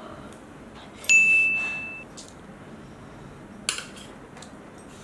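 A single clear metallic ding about a second in: one high, pure tone that rings for about a second, fading, then stops. A short click follows a little later.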